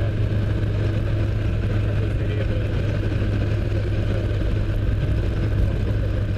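A car driving, heard from inside the cabin: a steady low engine hum under even road and tyre noise.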